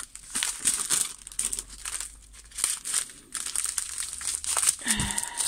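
Small plastic bags of diamond-painting drills crinkling as hands rummage through and sort them, in irregular crackles.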